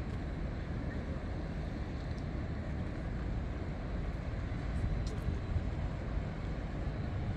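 Steady low rumble of wind on the microphone over general outdoor riverside background noise, with no distinct engine sound.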